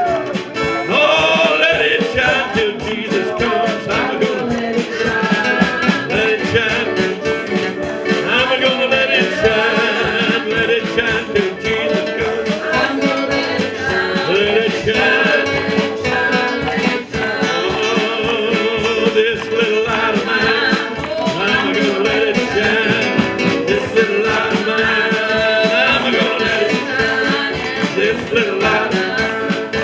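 Gospel music with singing over instrumental accompaniment.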